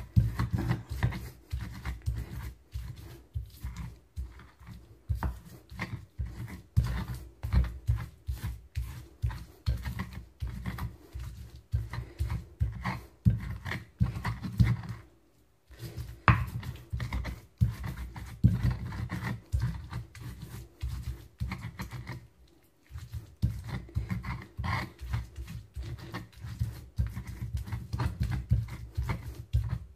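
Pestle grinding spice paste in an ulekan mortar, rapid repeated pounding and scraping strokes that stop briefly twice, about halfway and about three-quarters of the way through.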